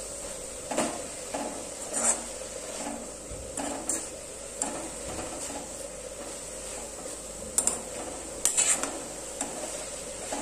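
A metal spoon scraping and knocking against a metal pot while boiled leafy greens are stirred and mixed, in irregular strokes with a cluster of sharper clinks near the end.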